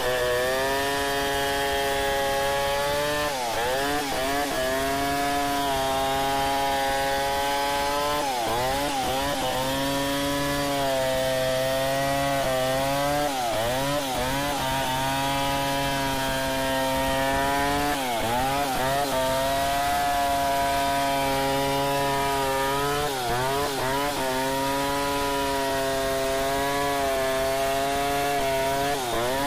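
Stihl 070 two-stroke chainsaw ripping lengthwise through a kubi log in a freehand milling cut. The engine runs steadily under load, and its note sags briefly and recovers about every four to five seconds as the chain bites into the wood.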